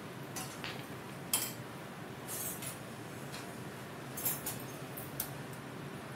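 A few light clinks and knocks of kitchen utensils and dishes being handled, a wooden spatula in a non-stick pan and a plastic plate, over a steady low background hum. The sharpest clink comes about a second in.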